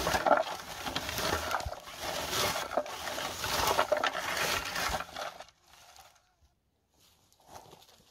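Hand berry picker raked through bilberry bushes, rustling and scraping through the leaves and twigs as it combs off the berries, for about five seconds before it stops.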